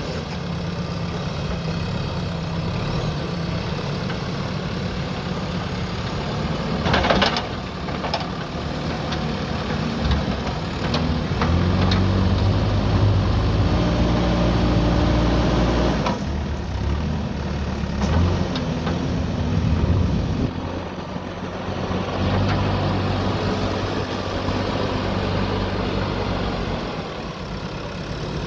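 JCB backhoe loader's diesel engine running, its revs rising and holding for several seconds twice as it works under load. A few sharp knocks sound in between.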